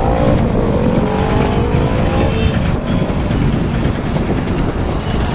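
Road traffic noise heard while moving along a street: a steady low rumble, with a vehicle engine whose pitch glides over the first two seconds or so.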